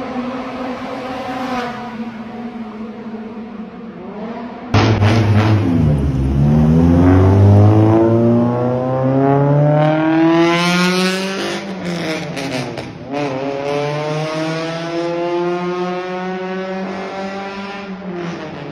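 Honda Civic Type R EK9's naturally aspirated 1.6-litre B16B VTEC four-cylinder engine running steadily, then, about five seconds in, suddenly getting louder and accelerating hard, its pitch climbing steeply into the high revs. Near eleven seconds the pitch drops at a gear change and climbs again before levelling off.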